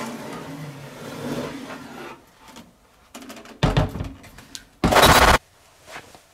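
Handling noise as beige retro PC cases are grabbed and slid, then a heavy thump and, about five seconds in, a short, very loud burst of harsh noise.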